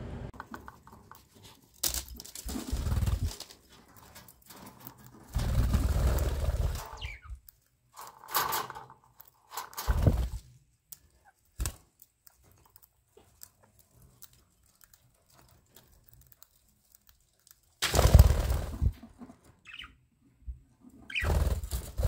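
Budgerigars in an aviary: a few faint, short chirps among several loud bursts of rustling noise, each lasting up to about two seconds.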